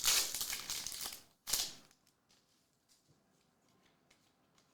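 Trading cards being handled and slid against each other: a papery rustle for the first second or so, then one short sharp swipe about a second and a half in.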